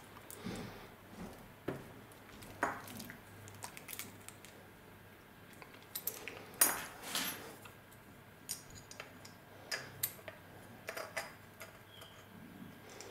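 Light metallic clicks and clinks as an Enya 35 glow engine, its metal silencer and a small steel bolt are handled and fitted together by hand. The clicks are scattered, with the loudest about six and a half seconds in.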